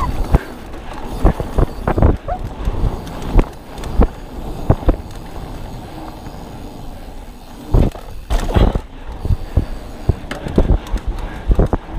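A 2021 Polygon Siskiu T7 full-suspension 29er mountain bike riding fast down a dirt trail: the tyres roll over the dirt, and sharp knocks and rattles come from the bike at irregular moments as it goes over bumps. The ride goes smoother for a couple of seconds around the middle.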